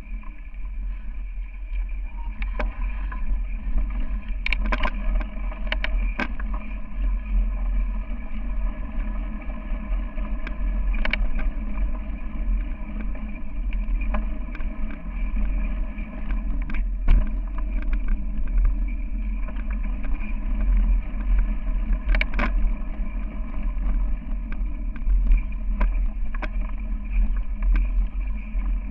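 Steady deep rumble of a mountain bike rolling fast over a dirt trail as picked up by a camera mounted on the bike or rider, with wind on the microphone. Scattered sharp knocks and rattles come from bumps on the trail.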